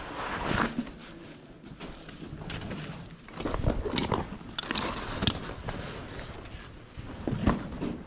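Footsteps and shoe scuffs on the stony floor of a mine tunnel, with irregular scrapes and knocks as a person steps through a low brick opening; the busiest stretch is in the middle.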